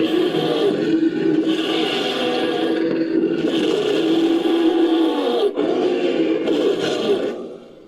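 Made-up monster creature sound effect layered from animal and monster recordings: a series of drawn-out, pitched roaring calls with short breaks between them, fading out near the end.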